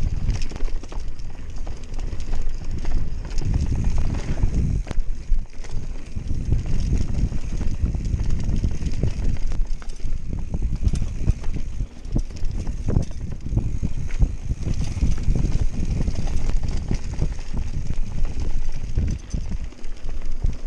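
Canyon Spectral full-suspension mountain bike running fast down a rough dirt trail: a constant low rumble of tyres and wind on the microphone, broken by many irregular knocks and rattles as the bike hits bumps.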